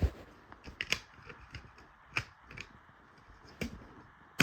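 Plastic clicks and knocks from handling an optical smoke detector and its mounting base, about six sharp clicks at irregular spacing.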